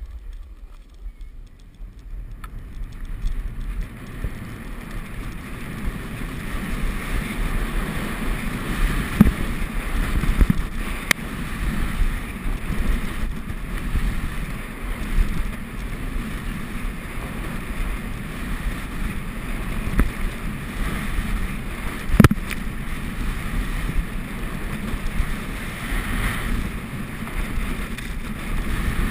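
Wind rushing over a helmet-mounted camera's microphone and skis scraping on the snow while skiing downhill, the noise building a few seconds in as speed picks up. A few sharp knocks cut through it, the loudest about 22 seconds in.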